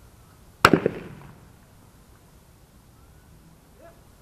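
A single shotgun shot about two-thirds of a second in, its report fading out over about half a second.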